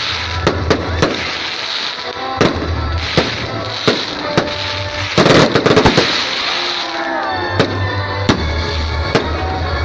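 Aerial fireworks going off in sharp separate bangs, with a dense run of rapid crackling about five seconds in. Music plays steadily underneath.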